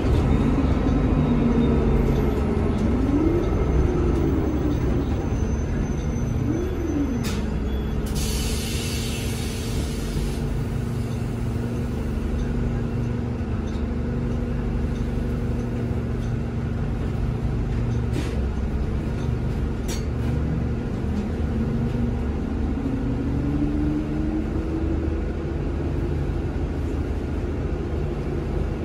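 Cabin sound of a 2018 NovaBus LFS CNG city bus under way: its Cummins L9N natural-gas engine and Allison six-speed automatic give a steady low rumble, with a whine that rises and falls several times as the bus pulls away and shifts. About eight seconds in, a hiss of air lasts about two seconds, and a few sharp clicks come later.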